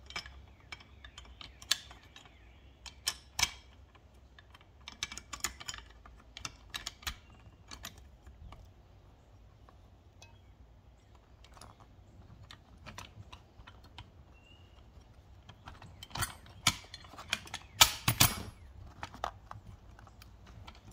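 Scattered light metallic clicks and clinks of the steel parts of a Jeep CJ7 emergency brake assembly being handled and pressed together by hand while a small spring is worked into place, with a louder flurry of clinks near the end.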